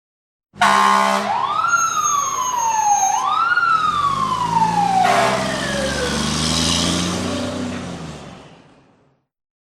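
Fire engine siren in traffic: a short horn-like blast, then the siren wails quickly up and slowly down twice, the second wail falling lower and trailing off over the truck's engine rumble. The sound then fades out.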